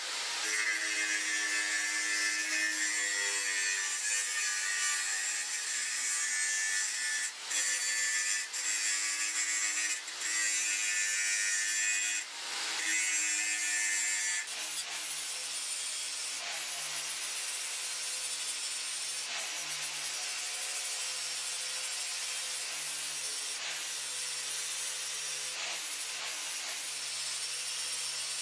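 Angle grinder grinding a tool-steel axe drift clamped in a vise, the disc running hard against the steel with a few brief dips where it eases off. About halfway through the sound changes to a second angle grinder with a flap disc, running with a different, steadier tone.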